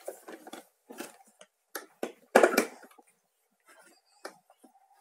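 Plastic parts of a toy electronic piano and its stand being handled and fitted together: scattered clicks and knocks, with one louder clatter about halfway through.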